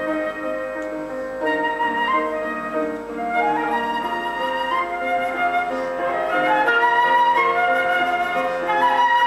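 A flute playing a slow, sustained melody over held chords from a keyboard accompaniment. The music swells louder a little past halfway through.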